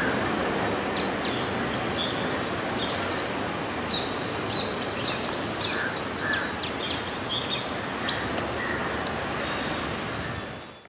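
A train running away into the distance, its steady rumble slowly fading, with birds chirping throughout. The sound fades out near the end.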